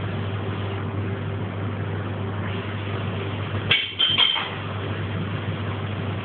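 A steady low machine hum, like a kitchen's running equipment, with a sharp click and a few short clinks about four seconds in.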